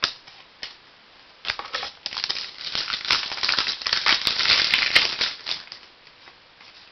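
A Donruss Diamond Kings trading-card pack's wrapper being torn open and crumpled: a couple of single clicks, then dense crinkling and crackling from about a second and a half in until about five and a half seconds in.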